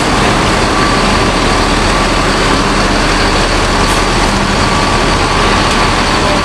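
Mercedes-Benz coach diesel engine running steadily as the bus is moved forward at low speed.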